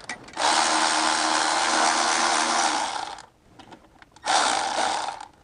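Handheld power tool motor running in two bursts, a long one of nearly three seconds and a short one of about a second near the end, as a small nut or bolt on the BMW E46 starter is spun off.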